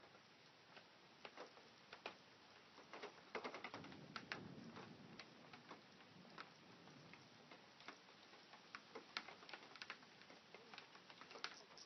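Near silence, with faint clicks and ticks at uneven intervals, a little busier about four seconds in.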